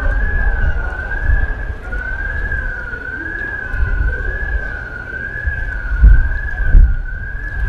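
Emergency-vehicle siren with a single tone that wavers gently up and down about once a second, over a heavy low rumble that peaks loudly twice near the end.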